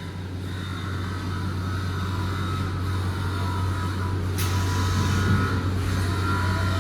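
Rotary argon welding machine running: a steady low hum with a few faint steady whining tones above it, and a short hiss about four and a half seconds in.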